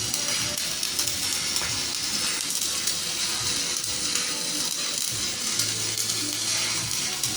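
Electric arc welding: the arc's steady crackling sizzle.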